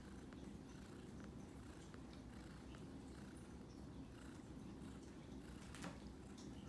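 Near silence: a faint, steady low hum of room tone with a few soft ticks, the loudest just before the end.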